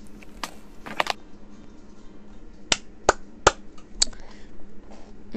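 About six sharp clicks or taps, irregularly spaced, two early and four in quick succession later, over a low steady background.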